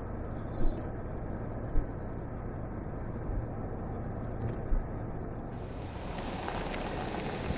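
Vehicle driving, heard from inside the cab: a steady low engine and road hum with a few small knocks.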